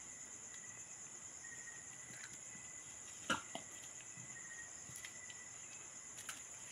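Night insects, such as crickets, chirring in a steady high drone, with a short sharp tap about three seconds in and a fainter one just after.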